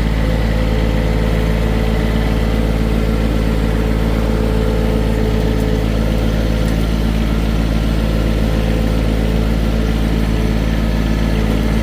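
John Deere 1023E compact tractor's three-cylinder diesel engine running steadily at a constant speed, close and loud.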